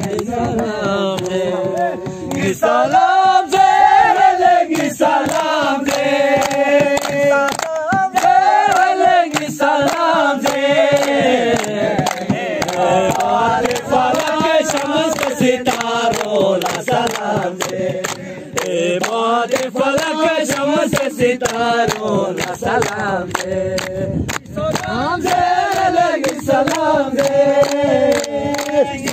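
Voices singing a Balti gazal together, long held notes that rise and fall in pitch, with frequent short clicks running through the song.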